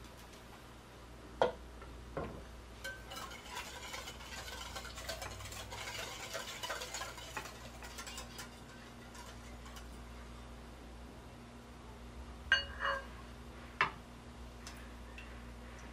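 A glass mixing bowl and a pot for a hot-water bath handled on a wooden counter: a few sharp clinks and knocks of glass and crockery, a stretch of soft, fine rattling in the middle, and two or three more clinks near the end.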